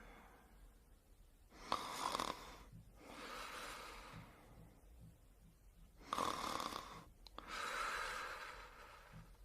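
Snoring in sleep: two slow breath cycles, each a loud rasping snore followed by a softer, longer breath out.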